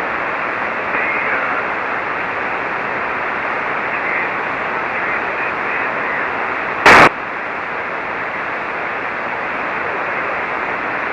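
Shortwave SSB receiver hiss on the 40-metre amateur band: a steady band-limited noise with faint traces of a very weak station's voice just above the noise. About seven seconds in comes a single very loud burst lasting a fraction of a second.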